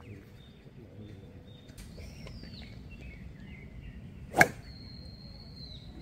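A single sharp crack of a driver clubhead striking a golf ball off the tee, about four seconds in. Birds whistle in the background.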